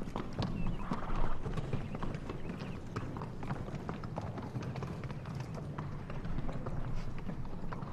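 Several horses walking on stone paving, their hooves clip-clopping in an irregular patter of many strikes.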